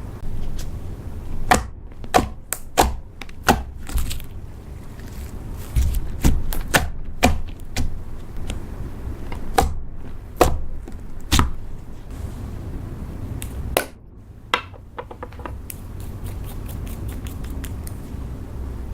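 Slime being squeezed and poked by hand, giving off irregular sharp clicks and pops over a low rumble.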